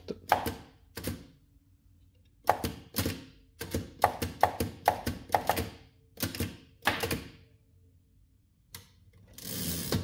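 Typebars of a 1930 Underwood Elliott-Fisher flatbed book typewriter striking down onto a ledger page, about a dozen heavy keystrokes at an uneven, unhurried pace. Near the end there is a click and a short sliding rush as the typing unit is moved back along its rails.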